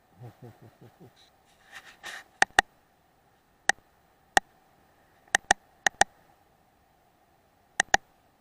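About ten sharp clicks, mostly in close pairs, spread over several seconds. A short run of low soft pulses comes first. A faint steady high whine runs underneath.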